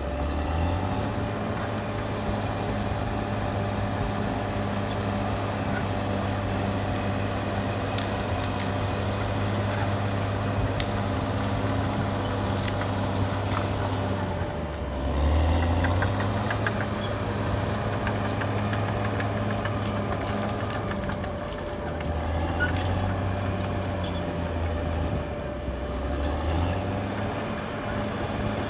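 Caterpillar D6R XL bulldozer's diesel engine running steadily at work, its note dropping and recovering about halfway through and again near the end, with scattered clanks.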